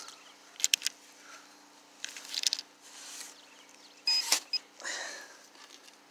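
Digging in dry soil with a steel shovel: a few short scrapes and crunches of dirt, with a brief electronic beep about four seconds in.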